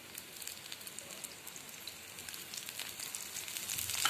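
Oil sizzling and spitting around potato patties frying in a non-stick pan: a fine crackle that grows denser and louder toward the end as the oil heats.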